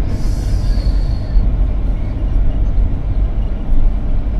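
Low, steady rumble of slow road traffic heard from inside a car, beside a container lorry. A high-pitched squeal runs through the first second and a half, then stops.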